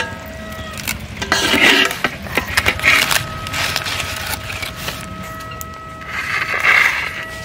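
Cooked banana leaf wrapping the fish rustling and scraping against a steel plate and the pan in three bursts as it is handled. A few light knocks come between the bursts.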